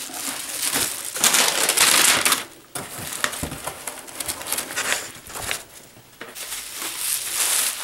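Bubble wrap and packing paper rustling and crinkling as a wrapped vinyl record is handled and lifted out of a cardboard box, in several bursts with short pauses.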